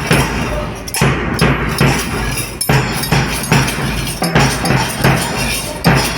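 Music with a steady, strong beat.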